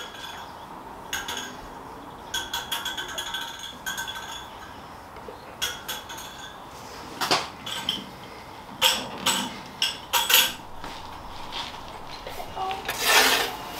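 Small metal hose clips clinking and clicking, with rubber vacuum hose being handled, as a one-way valve and hose are fitted to an engine's intake. The clinks come one by one at uneven intervals, a few ringing briefly, with a longer scrape near the end.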